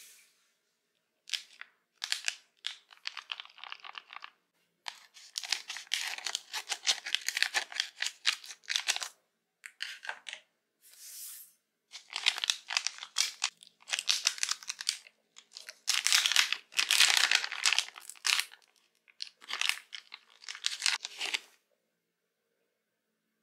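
Plastic gummy-candy pouch crinkling and tearing as hands handle it and rip it open. The sound comes in several bursts of crackling with short pauses between, loudest about two-thirds of the way through.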